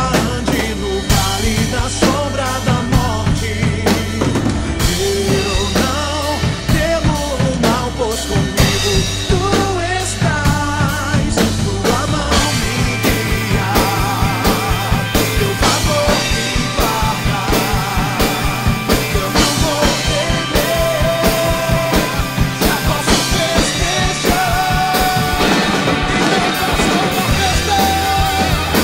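Acoustic drum kit played along to a recorded gospel rock song, with sung melody over the drums. About halfway through, the bass drum settles into a fast, even pulse.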